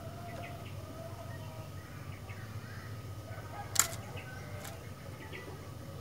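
Sooty-headed bulbul (kutilang) giving faint, short chirps and brief warbled notes over a steady low hum. A single sharp click about four seconds in is the loudest sound.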